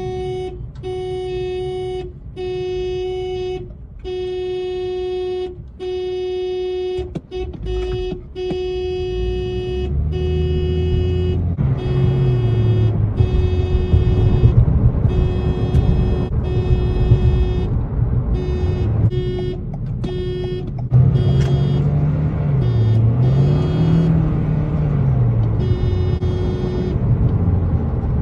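A car horn honking again and again on one pitch: long blasts with short gaps at first, then shorter, evenly spaced honks from about eight seconds in. From about ten seconds the honks sit over loud music with a low sliding bass line.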